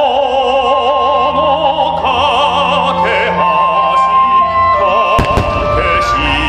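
Music with vibrato singing voices playing over loudspeakers for a fireworks display, with one firework burst going off about five seconds in.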